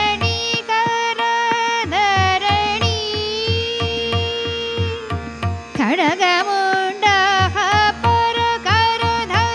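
A woman singing a Hindustani classical bandish in Raag Adana, with gliding melodic phrases and one long held note, over a steady drone and a low rhythmic drum beat. The beat drops out twice for about a second.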